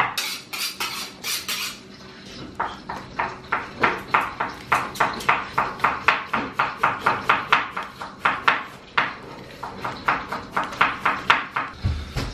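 Quick scraping strokes of a vegetable peeler on a potato. From about two seconds in, a kitchen knife chopping red onion on a wooden cutting board takes over, at a steady rhythm of about three cuts a second.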